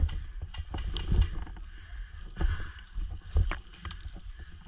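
Footsteps crunching through dry fallen leaves: irregular rustling crackles with heavier low thuds about once a second, picked up by a body-worn GoPro.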